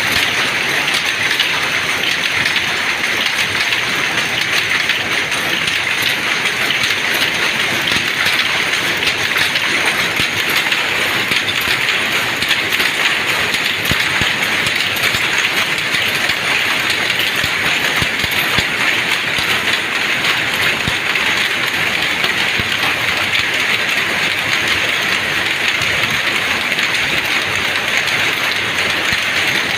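Dobby power looms weaving terry towels, running together in a dense, steady, rapid mechanical clatter.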